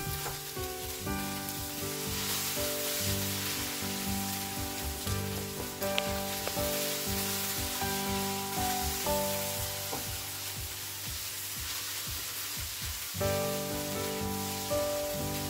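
Scrambled egg and shredded onion, potato and carrot sizzling as they fry in oil in a wok, stirred and mixed together with a wooden spatula. Soft background music plays alongside.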